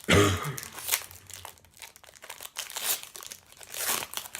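Foil wrapper of a football trading-card pack being torn open and crinkled by hand, with a sharp rip at the start followed by irregular rustling.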